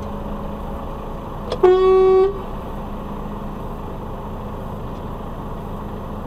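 One loud horn blast on a single steady note, lasting under a second, about a second and a half in, over the steady low hum of the truck's cab with its engine idling.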